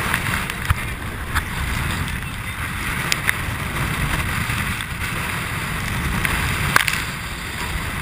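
Wind buffeting the microphone and water rushing past the bow of a boat running through big waves, with a few sharp ticks as spray hits.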